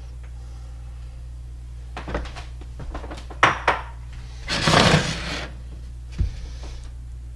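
Crockery handled on a glass-top electric stove: two sharp knocks, then about a second of scraping as a plate slides across the cooktop, and a single thump later, over a steady low hum.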